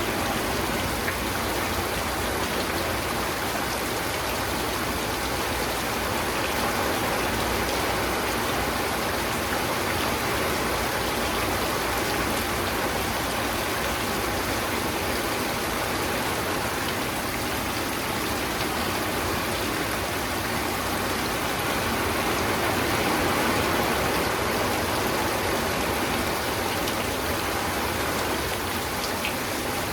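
Steady rain falling, an even hiss of many drops, with a few sharper drop ticks here and there.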